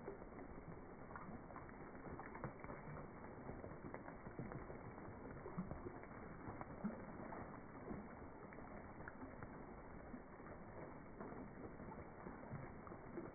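Rain falling onto a pond's surface: a faint, steady patter of many small drops hitting the water.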